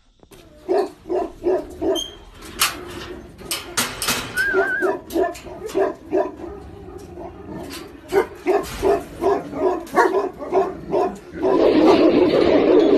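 Tibetan mastiff barking repeatedly with deep barks, about three a second. About 11 seconds in, a louder continuous rough sound takes over.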